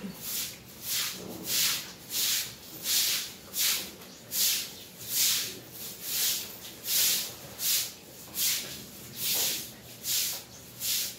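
A broom sweeping a wet concrete floor in steady strokes, each a short scratchy swish, about one every 0.7 s.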